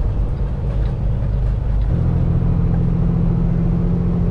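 Semi-truck engine running under way, heard from inside the Kenworth T680's cab, with a steady low hum whose tone changes about two seconds in.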